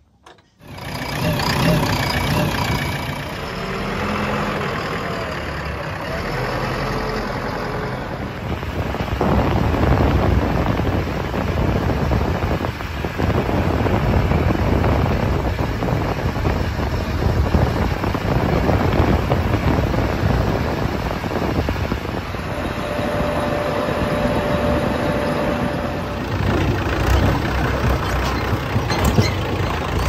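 Diesel engine of a JCB 3DX backhoe loader running loud and steady while the machine works, starting abruptly about half a second in.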